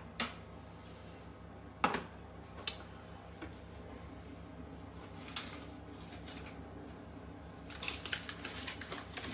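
Kitchen clatter: a few single sharp knocks of crockery and utensils being handled, then a quick run of small clicks and rattles near the end. A steady low hum runs underneath.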